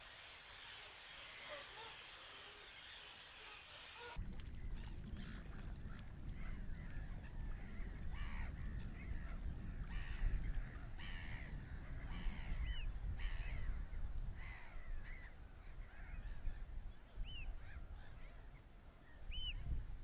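A soft, even hiss of water for about four seconds, then wind rumbling on the microphone under many short, repeated bird calls, a few of them quick rising-and-falling notes.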